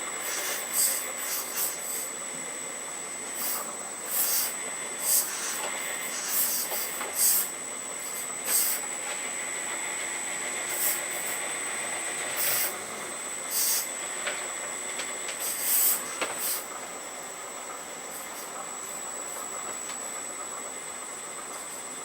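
Hydraulic system of an Earth Digger 4200XL RC excavator running with a steady high whine. Short bursts of hiss come at irregular intervals until about 16 seconds in, then only the steady whine remains.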